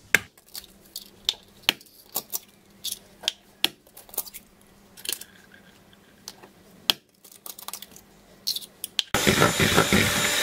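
Eggs tapped and cracked against a plastic mixing bowl: a scatter of sharp clicks and taps. About nine seconds in, an electric hand mixer starts up and runs steadily, its beaters whisking eggs and sugar until foamy.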